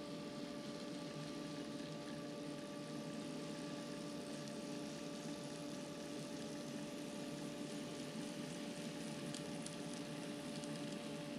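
N scale model locomotives running past on the track: a steady mechanical hum with a constant tone, over a soft hiss of rolling noise, with a few faint ticks near the end.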